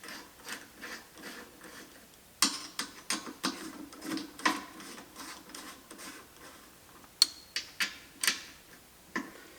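Irregular light metallic clicks and taps as two button-head bolts are started and run down through a steel top plate, with a few louder clinks among them.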